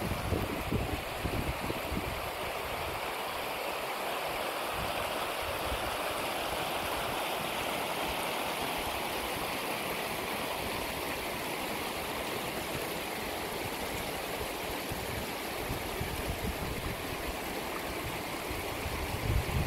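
Small rocky mountain stream running over stones, a steady rushing babble. Wind buffets the microphone with low rumbles at the start and again near the end.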